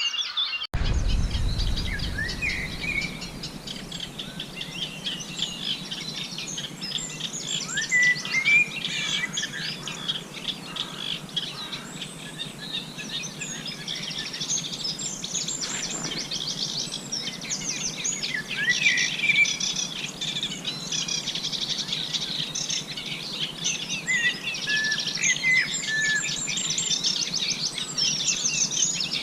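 Several songbirds singing at once, a dense chorus of quick chirps, twitters and trills that keeps going throughout.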